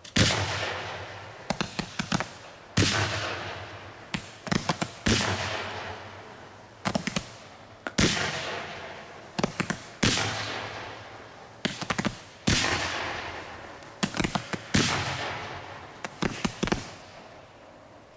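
Low-noise ('silent') 30 mm firework cake, the Piromax Velpus, firing its shots in quick clusters of sharp pops, a new cluster every one to two seconds, each followed by a long fading tail. The shots stop about seventeen seconds in.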